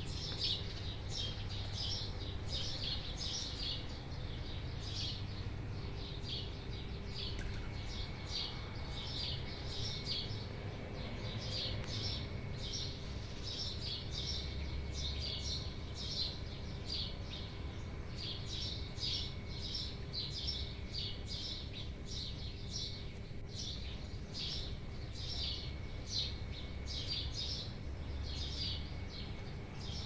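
Small songbirds chirping in short, high notes repeated several times a second without a break, over a low steady background rumble.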